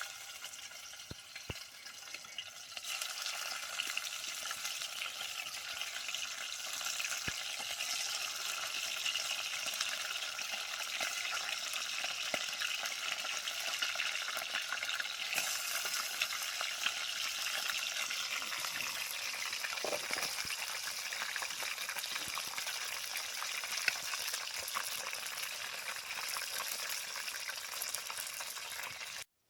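Traíra fish frying in hot oil: a steady sizzle with scattered small pops and crackles.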